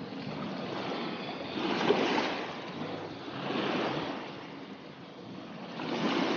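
Sea water washing against the shore in small waves, swelling and fading every couple of seconds.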